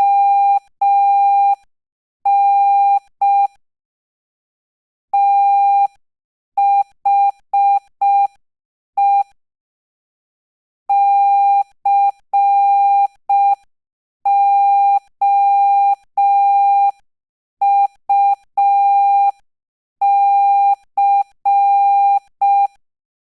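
Morse code practice tone sent at a slow 5 words per minute: a single steady-pitched beep keyed on and off in short dots and long dashes, with short silences between letters and longer pauses between words.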